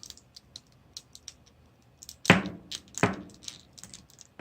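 Metal screwdriver prying at the plastic arm peg of a G.I. Joe action figure, making small clicks and scrapes, with two louder knocks about two and three seconds in.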